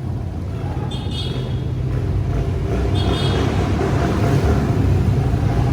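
Motor vehicle on the move, a steady low engine-and-road rumble that slowly grows louder, with short high chirps recurring about every two seconds.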